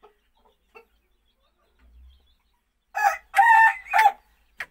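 A rooster crows once, about three seconds in: a short opening note, a long held middle note and a short closing note.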